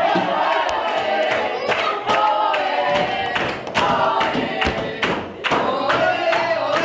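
A group of children cheering in celebration, with drawn-out, sung-out voices and many hand-claps.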